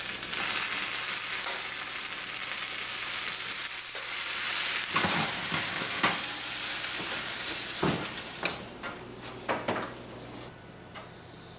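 Hatch green chilies sizzling under an oven's broiler element as their skins blister and char, with a few sharp metallic clicks from tongs and the oven rack. The sizzle fades over the last few seconds.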